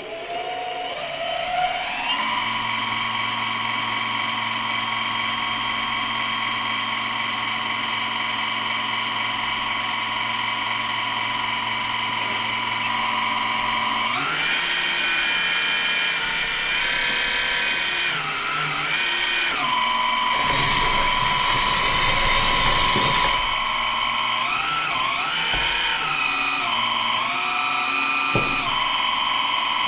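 Hydraulic pump of a Premacon Liebherr 956 RC excavator running with a steady whine while the cylinders are worked, here the ones that set the boom angle. About 14 s in it gets louder and its pitch wavers up and down as the hydraulics take load.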